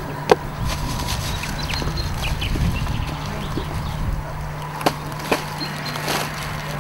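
Outdoor background noise with a steady low hum and a few sharp clicks, one about a third of a second in and two close together about five seconds in.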